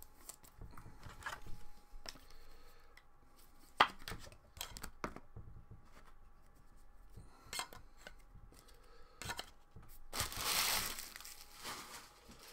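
Trading cards and foil card packs being handled: scattered light clicks and rustles of cards and plastic holders, with one sharp click about four seconds in. About ten seconds in comes a longer crinkling of a foil pack wrapper being torn open. A faint steady hum runs underneath.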